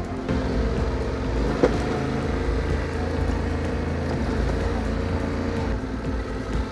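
Yamaha Ténéré 700's parallel-twin engine running steadily as the motorcycle rides down a gravel two-track. One sharp knock comes about a second and a half in.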